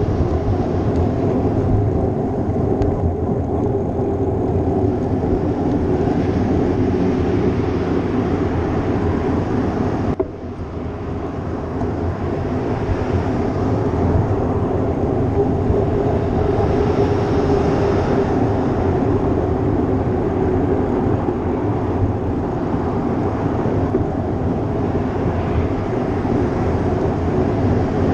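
Steady wind and road noise from a bicycle ride, picked up by a GoPro's microphone as the bike moves along, dipping briefly about ten seconds in.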